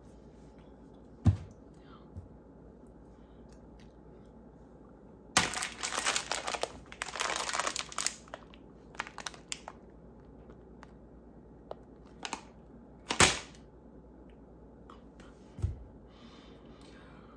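Plastic bag of white chocolate chips crinkling as it is handled, for about three seconds in the middle, with a few sharp knocks before and after.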